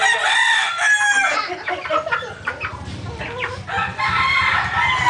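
Gamefowl chickens clucking, with a rooster crowing.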